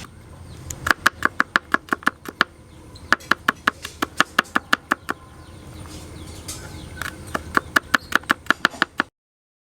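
Rapid sharp knocks, about six a second, in three runs of a second or two each, cutting off abruptly near the end.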